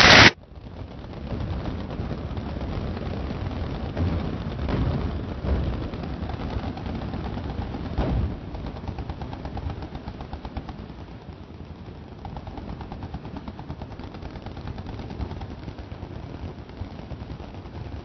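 Machine guns firing continuously downrange, a dense rattle of rapid shots, with heavier booms around four to five seconds in and again at about eight seconds. The sound opens on the end of a very loud blast that cuts off a fraction of a second in.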